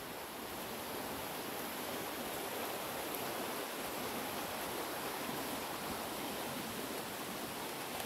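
Steady, even rushing of flowing water from a waterfall stream, with no distinct events.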